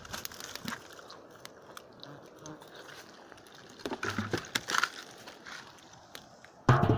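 A piglet chewing and crunching its food, with many small crisp crunches and louder bursts about four seconds in and again near the end.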